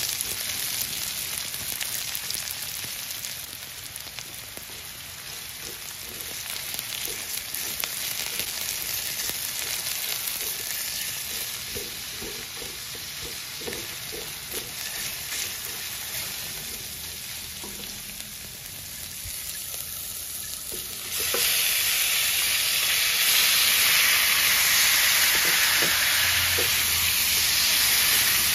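Diced onion sizzling in oil in an aluminium wok while a silicone spatula stirs it. About three-quarters of the way through, cubed raw pork goes into the hot wok and the sizzle turns suddenly much louder and stays loud.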